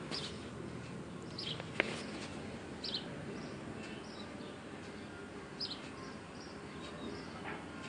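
A handful of short, high bird chirps at irregular intervals over a steady low background noise, with one sharp click about two seconds in.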